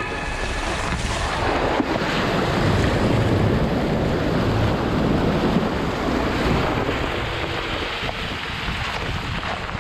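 Subaru Forester driving through a shallow, rocky creek: water rushing and splashing up around the front wheel as the tyre churns over the stones. The rushing swells toward the middle and slowly dies away.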